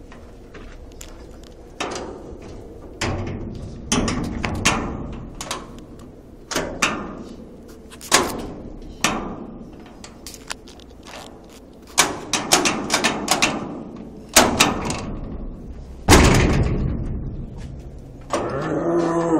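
A door being banged and rattled against its frame: a string of irregular knocks, thuds and slams, each ringing on briefly in the room, the hardest about sixteen seconds in.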